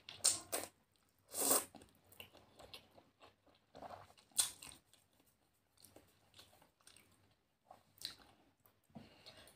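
A person slurping and chewing noodles close to the microphone: a few short slurps, one about a second and a half in and another about four and a half seconds in, with quiet chewing and small mouth clicks between them.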